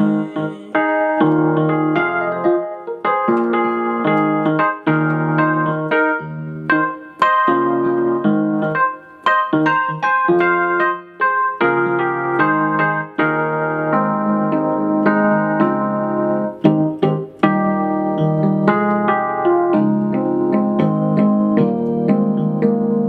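Digital keyboard with a piano sound playing a solo passage of block chords in a steady rhythm, with a few short breaks between phrases.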